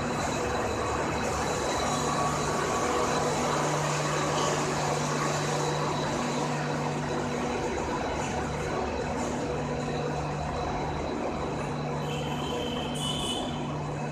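Passenger coaches of an arriving express train rolling past close by, a steady rumble and rattle of wheels on rail.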